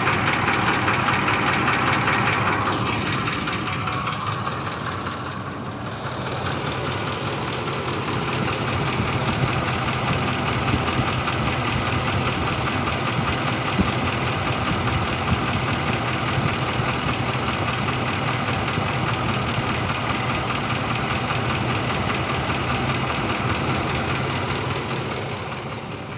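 Ford 5.4-litre Triton three-valve V8 idling warm, with the knock the owner is listening for. It runs steadily, dipping slightly in loudness a few seconds in.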